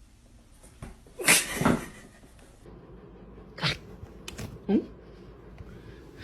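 A cat making a few short sounds: a louder one about a second and a half in, then two briefer ones near four and five seconds.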